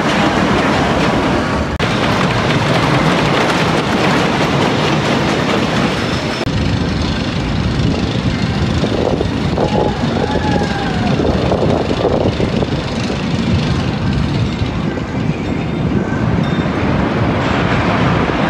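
Hoosier Hurricane wooden roller coaster train running along its track: a loud, continuous rumble and clatter of wheels on rails. The sound changes abruptly about two seconds in and again about six and a half seconds in.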